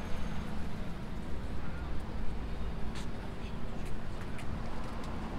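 Outdoor city ambience: a steady low rumble of road traffic, with a few light clicks around the middle.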